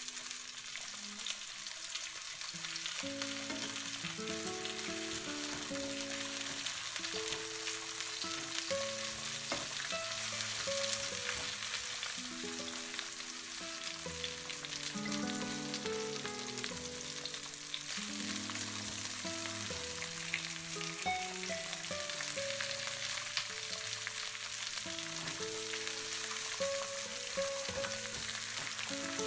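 Slices of courgette sizzling steadily in hot olive oil in a nonstick frying pan as they brown, with a few light spatula touches against the pan.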